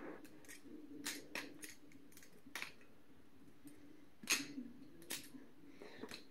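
Butterfly knife (a BRS Bare Bones clone) being flipped: irregular light metallic clicks and clacks as the handles swing and strike, the loudest a little past four seconds in, over a faint low hum. Its pivots are oiled with KPL but left untightened because the bolts are stripped.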